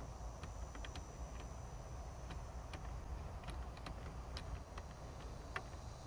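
Faint, irregular clicks of the dashboard information-console buttons being pressed one after another while paging through the driver display menu, over a low steady rumble.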